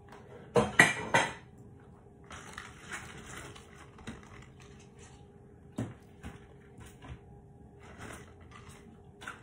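Kitchenware clattering: a quick cluster of knocks about a second in, then the soft rustle of cabbage leaves being handled and a few scattered light knocks.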